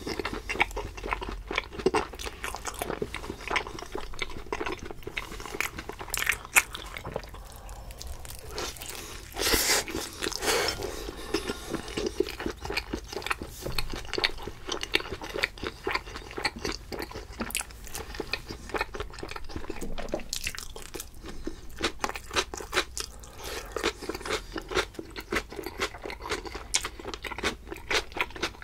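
Close-miked chewing of pizza: crisp crust crunching in quick, irregular chews, with wet mouth sounds between them.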